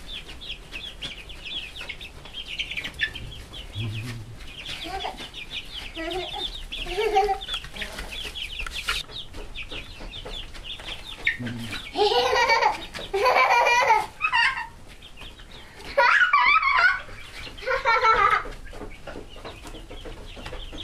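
A flock of hens clucking as they are chased around a coop, a steady stream of short high calls, with loud, drawn-out cries in two spells, about halfway through and again a few seconds later.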